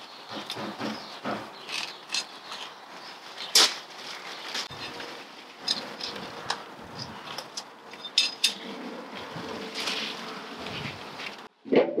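Irregular rustling, scraping and sharp clicks of a gardener working by hand in the soil and plants of a raised bed, with a faint steady buzz joining in later.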